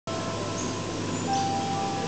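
Soft background music with sustained, chime-like held notes over a steady hum of room noise.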